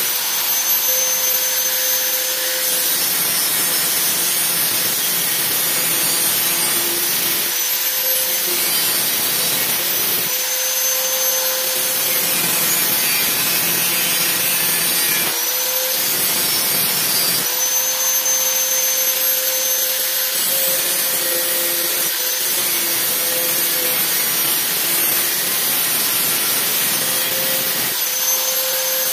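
A small electric motor running steadily with a loud hiss and a faint whine. The sound changes abruptly every few seconds.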